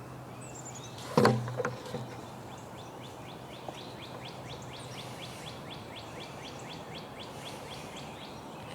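A single knock about a second in, then a bird calling in a steady series of short, high, falling chirps, about three or four a second, for several seconds.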